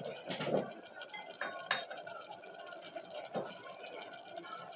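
Tomato sauce with diced sausage simmering in an aluminium pot, a steady soft bubbling hiss, with a few light clicks and knocks as the plastic spoon moves in the pot.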